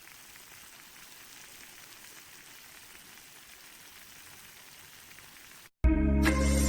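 A faint, steady hiss with no clear pattern, then a brief cut to silence and music starting loudly near the end.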